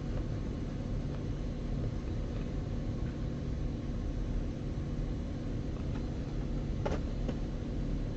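Steady low background hum, with a couple of light clicks about seven seconds in.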